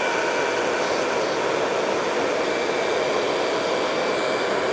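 Tefal ActiFry air fryer switched on for a test run after repair: its hot-air fan running with a steady whirring hiss and a faint steady whine.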